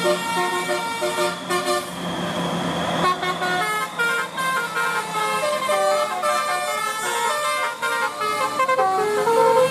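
Bus telolet horn playing a melody: several horn trumpets sound together in short stepped notes over the low hum of the engine, with a rush of noise about two seconds in.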